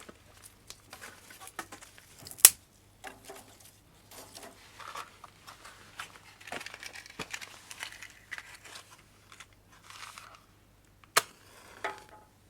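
Hands handling things during cooking preparation: rustling and crinkling, with a sharp knock about two and a half seconds in and another near the end.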